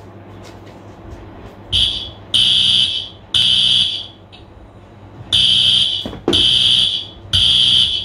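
Fire alarm beeping in a high pitch, in two groups of three long beeps with a short pause between. The alarm is brief, and the listener wonders whether it is a false alarm.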